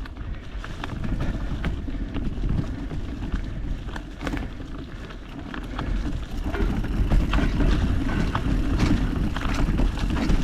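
Mountain bike rolling along a dirt trail, heard on a GoPro: a steady low rumble of tyres and wind on the microphone, with frequent irregular clicks and rattles from the bike. It gets louder a little past halfway.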